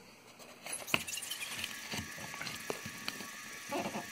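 Folded origami paper being handled and set down: a few light clicks and crinkles of paper over a steady hiss, with a short rustle near the end.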